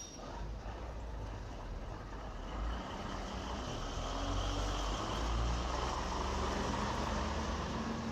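A motor vehicle engine running, from a vintage sound-effects record. It rumbles low and swells in loudness over the first few seconds, then holds steady.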